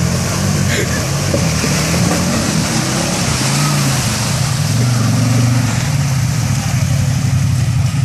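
CFMoto ZForce 800 side-by-side's V-twin engine running as it wades through a muddy creek. The pitch rises and falls with the throttle and is loudest about five seconds in as the machine passes close by, over a steady hiss of splashing water.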